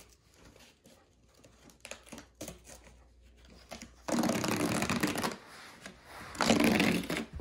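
Toy-box packaging of paper and cardboard being handled: light rustling and small clicks, then two louder rasping rustles, each about a second long, about four seconds in and again near the end.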